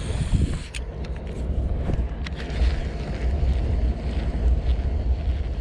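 Steady wind rumble buffeting the microphone while a baitcasting reel is cranked to retrieve a lure, with a few light clicks and a faint steady whir from about halfway in.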